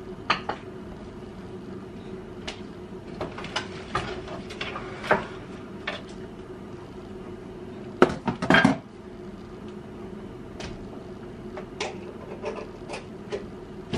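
Kitchen clatter: scattered knocks and clicks of cupboards, dishes and utensils being handled and set down, with a cluster of louder clanks about eight seconds in, over a steady hum.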